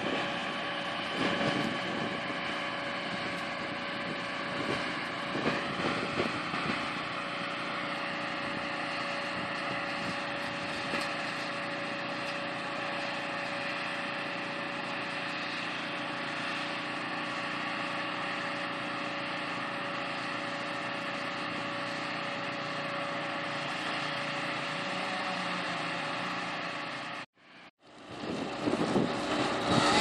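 Engines of heavy machinery (a mobile crane and work trucks) running steadily, a constant drone with a steady whine in it. The sound drops out briefly near the end and comes back louder and rougher.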